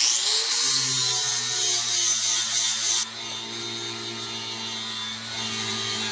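A power grinder sharpening a lawn mower blade: a harsh grinding hiss for about three seconds over the motor's steady hum, then the grinding stops and the motor keeps spinning.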